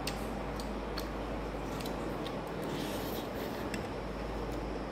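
Metal spoon scraping and tapping on a plastic plate of rice, a scattering of light clicks over a steady background hiss.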